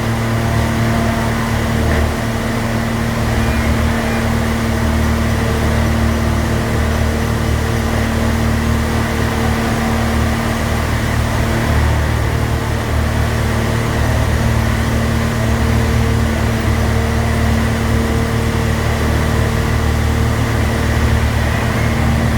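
Electric motor running steadily with a loud, constant hum and a few steady tones over it.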